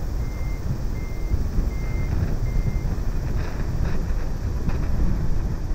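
Steady low outdoor rumble with wind on the microphone. A vehicle's reversing beeper gives four short, high, evenly spaced beeps in the first three seconds, then stops.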